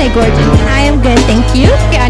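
Music: a track with a vocal line over a steady low bass.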